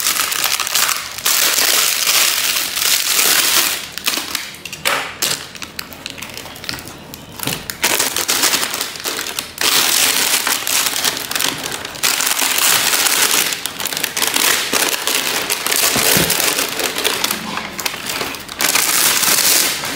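Plastic wrapping being crinkled and pulled off a new motorcycle exhaust pipe. The crinkling comes and goes, dropping off for a few seconds about a quarter of the way in and again near the end.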